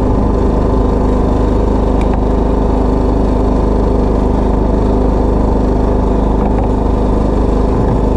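Engine of a jukung outrigger fishing boat running steadily at constant speed, a low even drone.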